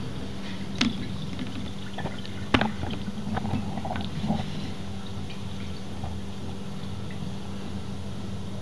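Fork oil poured from a plastic measuring jug into the outer chamber of a KYB closed-cartridge motorcycle fork tube, over a steady low hum. A few sharp clicks come in the first half, the loudest about two and a half seconds in.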